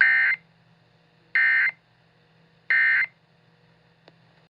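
Three short bursts of Emergency Alert System SAME data tones, the warbling digital end-of-message code, each about a third of a second long and a little over a second apart. A faint low hum sits underneath, with a small click near the end.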